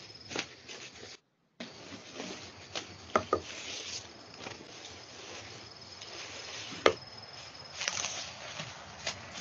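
Freshly cut ramie stalks and leaves being handled and stripped by gloved hands: a steady rustle and swish of leaves with a few sharp clicks, the loudest about seven seconds in. The sound drops out for a moment about a second in.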